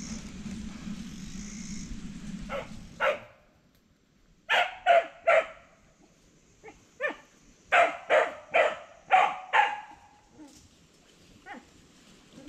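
A dog barking in a quick run of about a dozen sharp barks, some in clusters of two or three, loudest in the middle stretch. A steady rushing noise fades out just before the barking starts.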